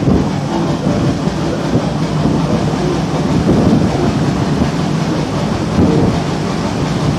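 Steady low rumble of a steamboat under way, with water wash along the hull, echoing as the boat passes under a brick bridge arch.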